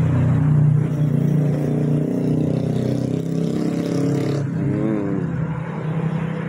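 Large engine-driven air compressor running steadily: the engine turns a belt-and-flywheel-driven two-cylinder pump that charges a big horizontal air tank.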